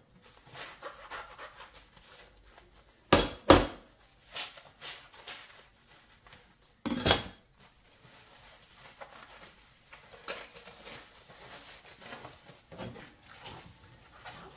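A few sharp knocks and clatters of household objects being handled and set down, a close pair about three seconds in and another about seven seconds in, with light clicks and rustling between.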